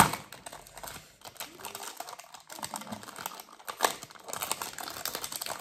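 Cardboard and plastic perfume packaging being handled and worked open. It crinkles and rustles with many small clicks and taps, and there is a loud clack at the very start.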